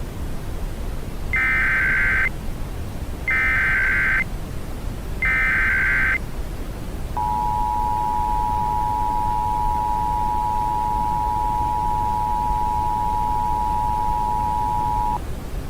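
Emergency Alert System broadcast tones: three one-second bursts of shrill warbling data tones (the SAME header), about a second apart. Then, from about seven seconds in, the steady two-tone attention signal holds for about eight seconds and cuts off. A low hiss of static runs underneath.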